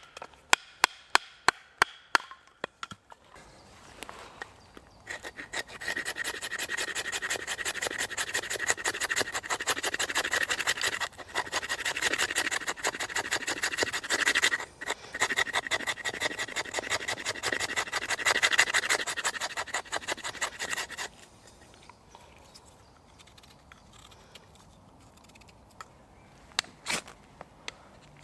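A short run of quick, sharp wooden knocks from splitting work on the log, then a knife blade scraping rapidly back and forth along split pine wood for about fifteen seconds, rasping off fine shavings. A couple of faint knocks follow near the end.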